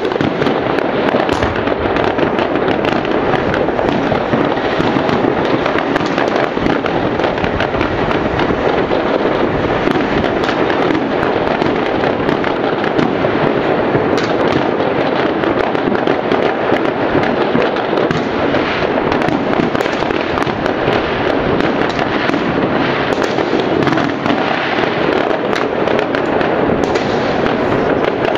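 Dense, continuous crackling and popping of many New Year fireworks and firecrackers going off in many places at once, a steady din of countless overlapping bangs with no single blast standing out.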